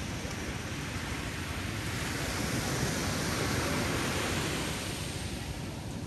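Gentle ocean surf on a sandy beach: small waves breaking and washing up the shore as a steady rush, swelling in the middle and easing again toward the end.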